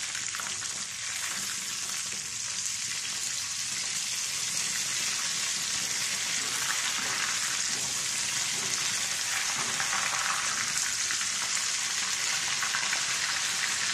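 Oats-coated chicken pieces deep-frying in hot oil in a heavy black kadai, a steady sizzle, while a spatula turns the pieces over.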